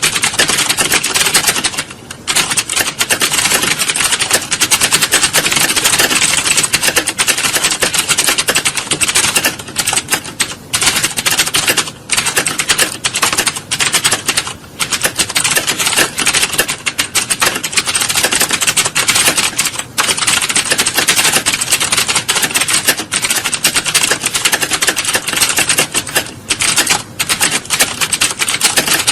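Many computer keyboards being typed on at once: a dense, continuous clatter of key clicks with only brief pauses.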